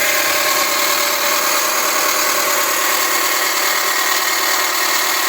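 Dodge engine idling, heard close up at the accessory belt drive, with a steady, even noise made of several constant tones. The mechanic suspects a failing alternator, which he finds coated in dust and vibrating.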